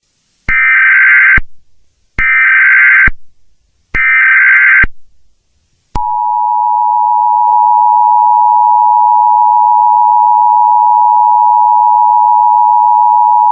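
Emergency Alert System tones: three short bursts of data-header noise, each just under a second long and spaced under two seconds apart, then about six seconds in the steady two-tone attention signal begins and holds. Together they mark the start of a new emergency alert message.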